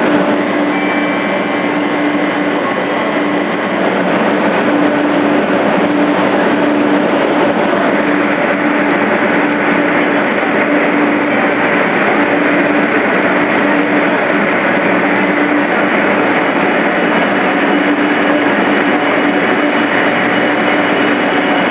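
Shinkansen bullet train pulling out of the station, a steady rushing noise with a faint hum underneath.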